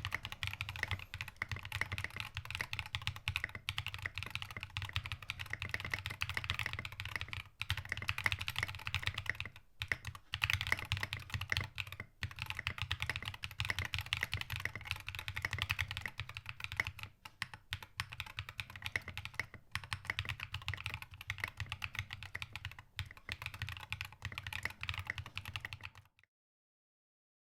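Fast typing on a custom mechanical keyboard with lubed KTT Halu Halo linear switches, SA-profile keycaps and an aluminium plate, with no sound dampening: a dense run of keystrokes with a few short pauses, cutting off abruptly near the end.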